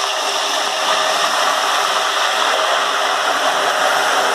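Loud, steady sizzling of hot frying oil with about 100 ml of water just added, the water boiling off in the oil around frying sweet potato pieces.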